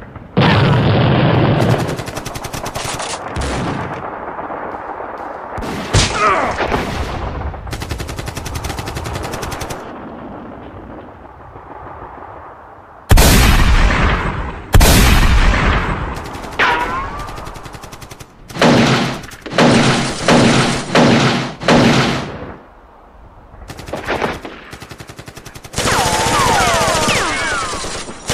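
Battle sound effects of rapid machine-gun and rifle fire in long bursts, with two heavy booms about halfway through and a few short whistling glides.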